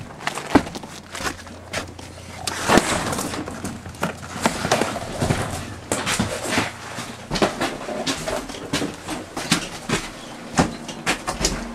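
Irregular footsteps, knocks and clatter, with rustling between them, as people come up steps and in through a door.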